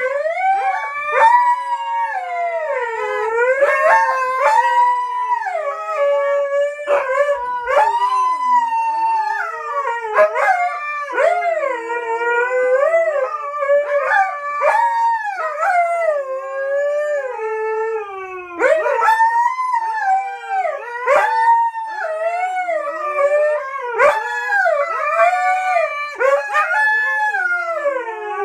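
Two Siberian huskies howling together: long, unbroken howls that waver up and down in pitch, at times overlapping.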